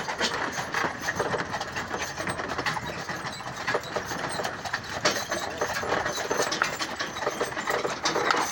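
Horse-drawn carriage rolling along a dirt lane: a continuous rattling and clattering of the wagon and its fittings, mixed with the hoofbeats of the two horses pulling it.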